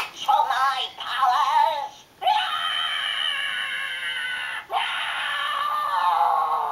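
Matt Hatter Villain Vault toy playing its electronic villain sound effect through its speaker as a life cell is locked in: a wavering cry, then two long drawn-out cries that each slowly fall in pitch, the second starting just under five seconds in.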